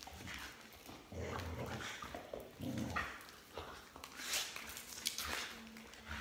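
Border collie vocalizing as it chases and snaps at a swinging jump rope, mixed with irregular thuds of feet and rope on the floor.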